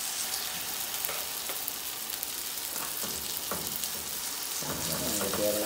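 Thick spinach adai batter sizzling in hot oil as it is spooned into the pan, with a steel spoon faintly scraping and tapping as it spreads the batter out.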